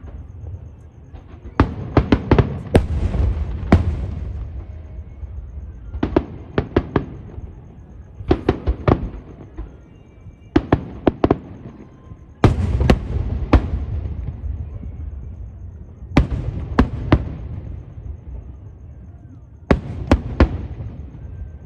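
Aerial fireworks shells bursting in volleys: clusters of several sharp bangs every two to four seconds, each volley followed by a low rumble that fades away.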